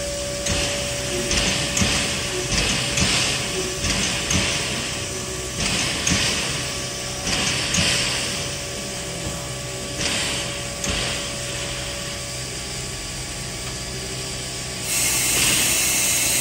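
Standing Garratt steam locomotive 6029 working at rest: rhythmic paired puffs of steam with mechanical clicks, about one pair a second, over a steady hum, the puffing stopping about two-thirds of the way through. Near the end a loud, steady hiss of steam starts up.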